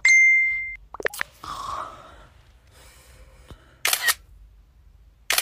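A short notification chime, one held tone, sounds at the start. Two camera shutter clicks follow, about a second and a half apart, near the end.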